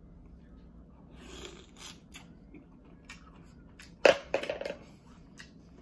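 Close-miked eating of green-lipped mussels: small clicks and rustles of the shells being handled, then a sharp, loud mouth sound about four seconds in as a mussel is bitten and chewed.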